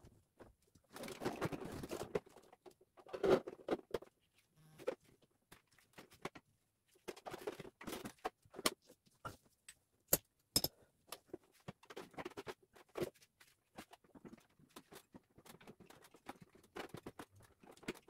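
Irregular clicks, knocks and rustling as insulated refrigerant pipe, wiring and plastic panels are handled inside the open indoor unit of a Samsung floor-standing air conditioner during installation.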